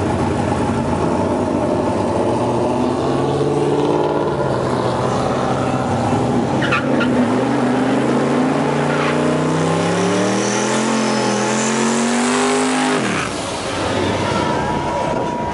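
G-body Chevrolet Malibu's engine revving hard through a burnout, spinning its rear tires. The engine note holds steady, then climbs in pitch over several seconds before dropping off suddenly near the end.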